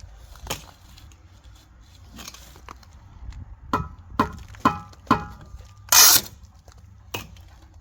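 Four quick taps of a steel brick trowel on concrete block, each ringing briefly, then a short louder scrape and one more knock: mortar work while laying blocks.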